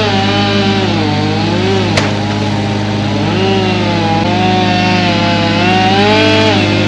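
Chainsaw running and cutting, its engine note dipping and recovering several times under load, over the steady drone of another engine running. A single sharp click about two seconds in.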